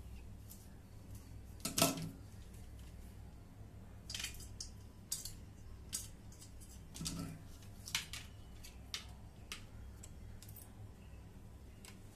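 Pliers clicking, clinking and snipping as electrical wire ends are stripped and handled, with scattered sharp clicks and a louder knock about two seconds in and again around seven seconds, over a faint low hum.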